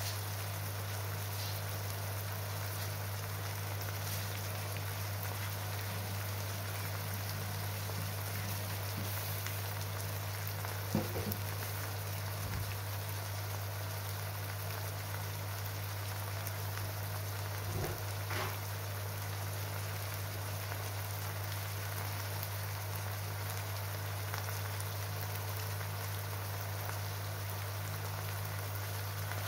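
Diced onions and chunks of lamb liver sizzling steadily in hot oil in a frying pan, with a steady low hum underneath and a couple of faint pops.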